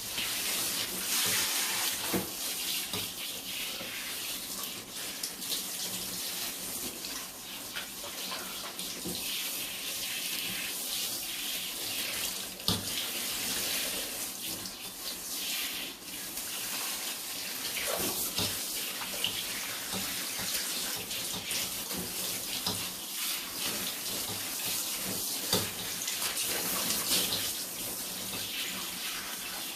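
Water running steadily from a tap, splashing, with scattered small knocks and splashes through it.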